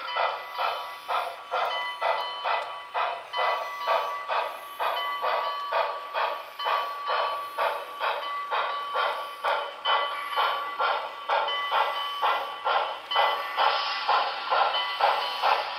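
Steam chuffing from the onboard sound system of a Broadway Limited Reading T1 4-8-4 model locomotive running along the track, an even, steady exhaust beat.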